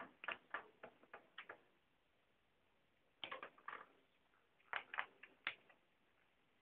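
Trading cards being handled and flipped through by hand: faint clusters of short clicks and rustles, three bunches with quiet gaps between.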